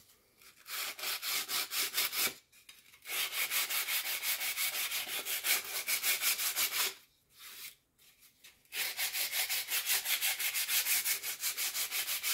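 Hand sanding a wooden board with a small piece of ordinary sandpaper: quick back-and-forth rubbing strokes, about five a second, in three spells with two short pauses. It is a light final pass over the board after machine brushing, to knock down the raised fibres.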